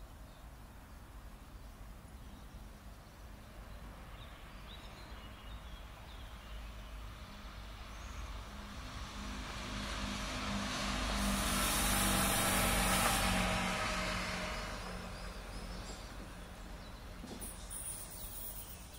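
Stadler Regio-Shuttle RS1 diesel railcar passing by, its engine drone and wheel noise swelling over several seconds to a peak a little past halfway, then fading as it moves off.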